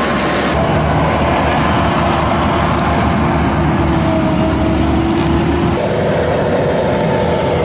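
Farm harvesting machinery running steadily under load: a heavy engine hum with a steady whine on top. The sound changes abruptly about half a second in and again near the end.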